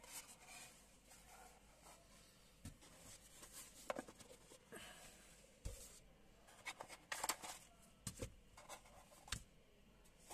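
Faint handling noises of unpacking: light taps, scrapes and rustles as a cardboard sunglasses box is opened and a leatherette case, a microfibre cloth and cards are set down on a table. The taps are scattered, busiest about seven to eight seconds in.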